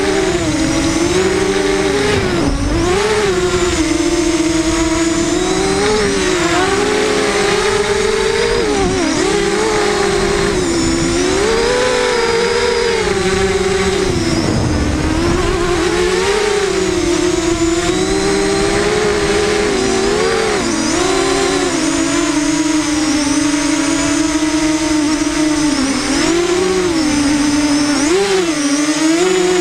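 FPV racing quadcopter's brushless motors and propellers whining in flight, the pitch rising and falling again and again as the throttle changes.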